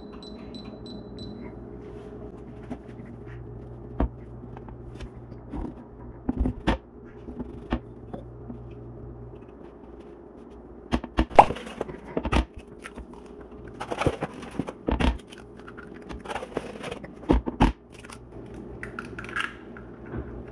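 A KitchenAid glass cooktop's touch controls give a run of short high beeps in the first second. After that come scattered clicks, taps and scrapes from bread slices being laid on a griddle pan and an egg being cracked, over a steady low hum that stops about halfway through.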